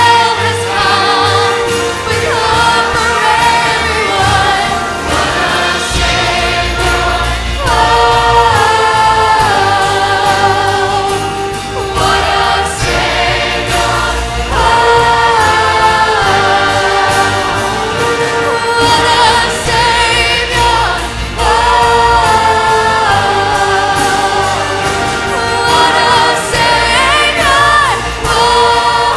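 Choir singing Christmas music with instrumental accompaniment, on long held notes with vibrato, over a deep bass that enters about six seconds in.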